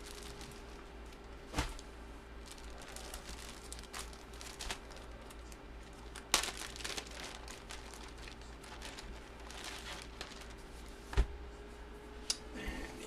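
Crinkling and tearing of packaging as a jersey is unwrapped by hand, with a few sharp knocks about a second and a half, six seconds and eleven seconds in. A faint steady hum sits underneath.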